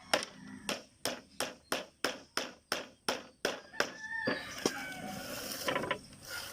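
Hammer blows, a steady run of about a dozen sharp strikes at roughly three a second, stopping about four seconds in.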